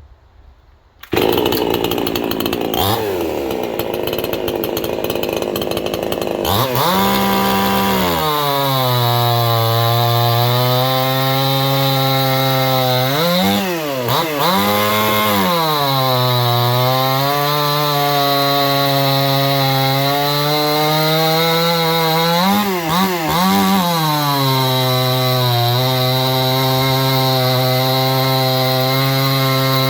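Gas chainsaw running at high revs while cutting wood. It starts loud and abruptly about a second in, then holds a steady engine note, with the revs briefly dropping and recovering a few times under load.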